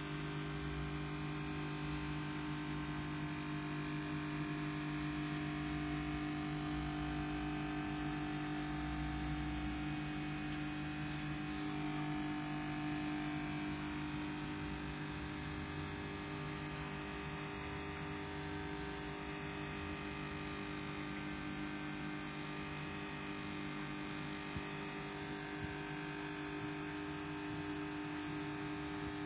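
Steady hum of running aquarium equipment, its pitch unchanging throughout.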